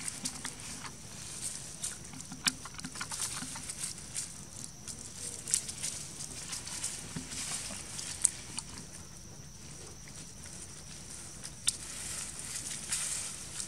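Dry leaves crackling and rustling as macaques move about on leaf litter, in many short, irregular clicks. A steady high hiss runs underneath.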